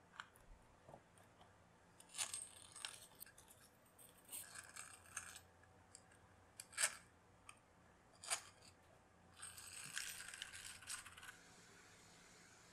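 Small clicks and rattles of plastic 18650 cell holders and metal screws being handled during battery pack assembly, with two sharper clicks in the middle and a stretch of scraping near the end as a screwdriver turns a screw into a holder.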